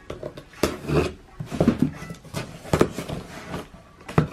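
Cardboard box being handled: several sharp knocks, with rubbing and scraping of cardboard between them.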